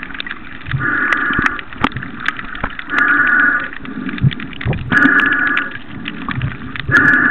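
Snorkeller breathing through a snorkel tube: a hollow, whistly rush about every two seconds, with many sharp clicks and crackles in between.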